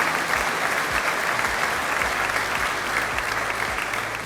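Audience clapping steadily, a dense even patter of many hands.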